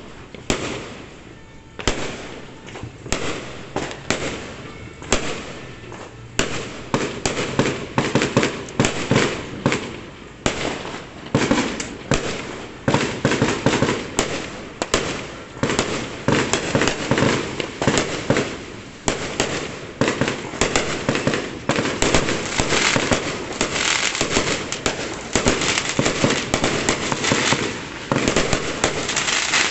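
Fireworks going off in rapid succession: sharp bangs and cracks, a few a second at first, thickening after about twelve seconds into an almost unbroken crackling barrage.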